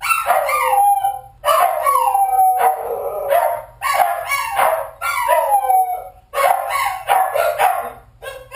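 A dog howling and barking, a string of loud calls each about a second long that fall in pitch, with short breaks between them.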